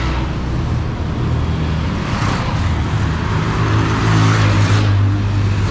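Road traffic: a motor vehicle passing close by, its engine hum and tyre noise building to a peak about four to five seconds in.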